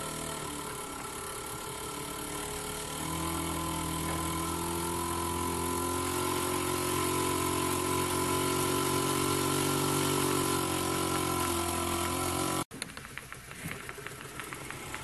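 Microcosm V-twin model steam engine running fast on steam fed from an electric steam cleaner: a steady hum and whirr with a hiss of steam, swelling a little about three seconds in. Near the end it drops abruptly to a quieter hiss with faint ticking.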